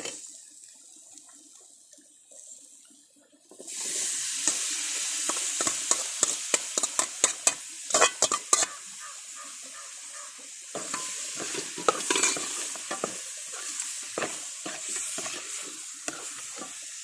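Boiled beef going into a hot pan of frying onion-and-spice masala: the pan starts sizzling loudly about three and a half seconds in. A ladle stirs and scrapes through the mix, with many quick knocks against the pan.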